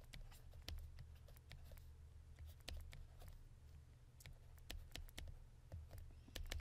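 Faint, irregular clicks and taps of a stylus on a pen tablet during handwriting, over a steady low hum.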